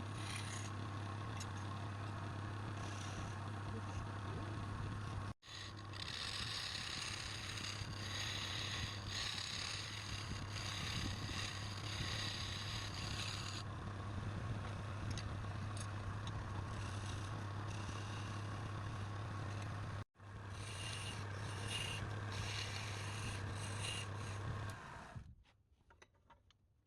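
Wood lathe running with a steady motor hum while a hand-held turning tool scrapes and cuts the spinning wood. The sound breaks off sharply twice and fades out near the end.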